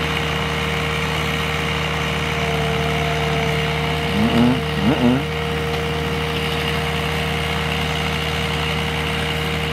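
Engine idling steadily, with two short sliding-pitch sounds about four and five seconds in.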